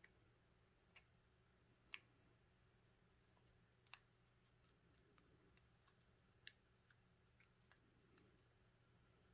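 Faint, scattered small clicks and taps from handling a lithium-ion battery pack: 18650 cells, wire leads and a round protection circuit board knocking together in the hands, the sharpest about 2, 4 and 6.5 seconds in. A steady faint low hum lies underneath.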